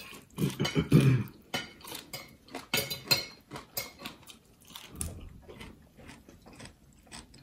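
Cutlery and dishes clinking at a meal table: a scatter of short taps and clicks, busier in the first half and thinning toward the end.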